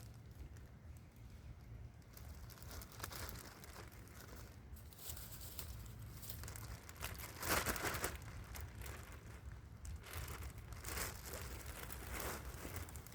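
Irregular rustling and crinkling close to the microphone, with a louder burst about seven and a half seconds in.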